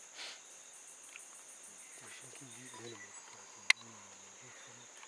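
Steady high-pitched drone of forest insects, with faint low murmuring voices near the middle and a single sharp click about three and a half seconds in.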